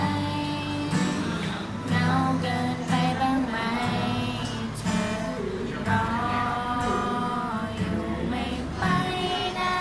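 Two girls singing together, accompanied by an acoustic guitar strummed in a steady rhythm.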